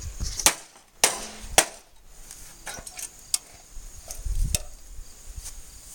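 A microwave oven being struck hard: three loud sharp hits about half a second apart in the first two seconds, then a few lighter knocks.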